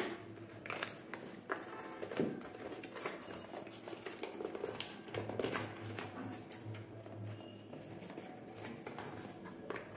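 A cardboard delivery parcel being handled and turned over on a wooden table: irregular taps, scrapes and rustles of cardboard, with a sharper knock right at the start.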